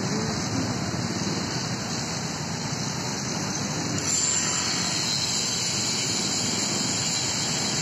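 Traffic on a busy town street, mostly motorcycles with a few cars, heard from above as a steady wash of engine and tyre noise. It grows a little louder about halfway through.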